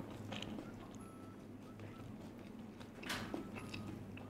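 Close-miked eating sounds: a person chewing, with small wet mouth clicks and a louder wet smack about three seconds in.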